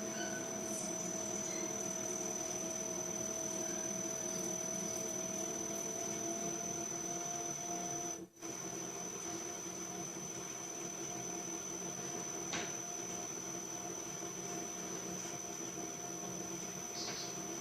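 VFD-driven drill press running steadily at low speed while a 1/2-inch coarse tap cuts threads through a 1-inch steel shaft: a steady motor hum with a high, thin whine. The sound cuts out for a moment about eight seconds in.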